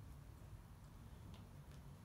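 Near silence: low room tone, with two faint soft ticks about a second and a half in.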